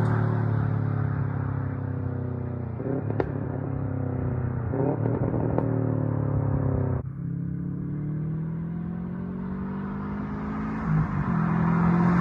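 Subaru WRX STI's turbocharged flat-four running through a straight-through catback exhaust with no resonator or mufflers, its note falling away after a pass-by with a sharp crackle about three seconds in and another a couple of seconds later. About seven seconds in the sound breaks off abruptly, then the engine note rises and grows louder as the car comes back for another flyby.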